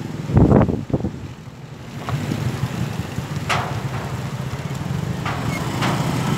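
Strong storm wind buffeting the microphone: a loud gust in the first second, then a steady low rumble broken by a few short sharp cracks.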